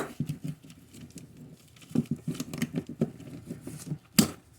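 Rivet gun being squeezed to set a blind rivet in a car door's window channel: quick runs of clicks and rattles from the tool, with a sharp click at the start and a loud snap about four seconds in.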